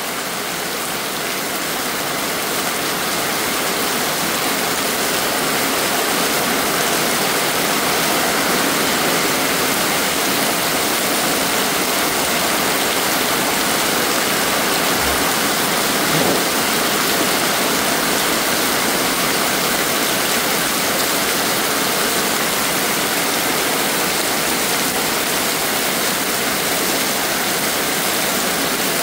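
Heavy rain pouring down steadily on muddy ground, puddles and roofs, a dense, even hiss.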